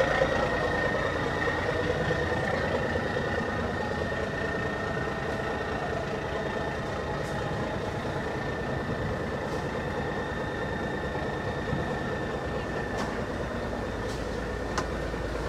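A fishing trawler's diesel engine running steadily at idle: a continuous hum with a thin steady whine above it, and a few faint clicks.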